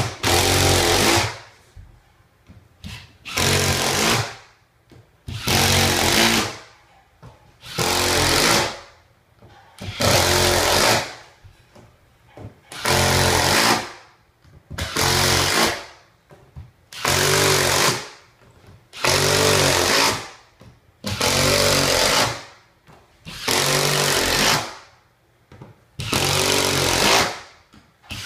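Cordless impact driver sinking screws through backer board into a wooden subfloor, one screw after another: about thirteen bursts, each a second or so long, coming every two seconds or so.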